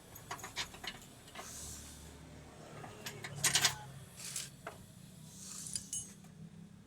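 Scattered metallic clicks and clanks of hand tools and steering parts being handled during rack-and-pinion work, the loudest clank about three and a half seconds in and a short ringing clink near the end, over a low steady hum.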